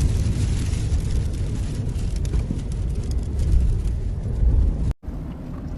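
Sandstorm wind blowing hard with a loud, steady low rumble and hiss, cut off abruptly about five seconds in and then resuming as a quieter rumble.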